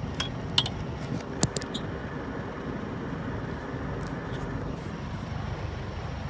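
A handful of short, light clicks and clinks in the first two seconds, from hand tools working on the engine as the crankshaft is turned by hand with a wrench, over a steady low background hum.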